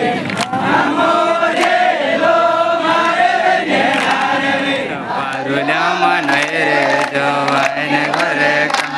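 Many voices singing a chant-like song together, the overlapping voices of a dancing group, with a lower voice joining about five seconds in.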